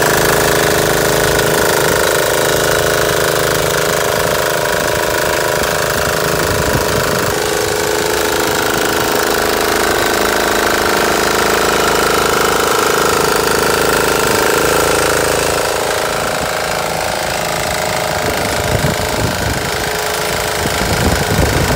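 DNYSYSJ 196cc single-cylinder four-stroke diesel engine running loud and steady under load, driving a rear-tine tiller through soil. It makes a hard diesel clatter, and its note shifts a couple of times as the load changes.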